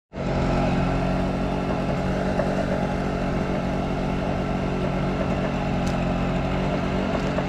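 A boat engine running steadily with an even drone.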